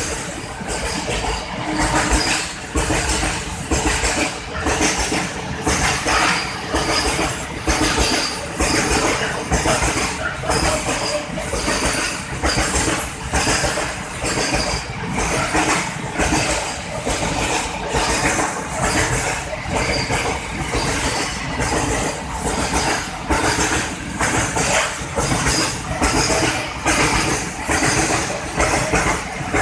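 Freight train wagons rolling past close by, their wheels clattering over the rail joints in a steady rhythm about once a second.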